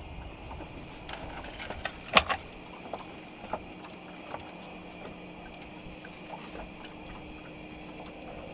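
Light, irregular clicks and knocks of fishing gear being handled in a boat, with one sharp knock about two seconds in, over a steady faint hum.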